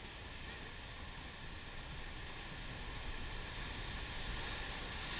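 Ocean surf breaking and foaming over dark lava rocks: a steady rush of churning water that swells louder over the last couple of seconds as a wave crashes on the rocks.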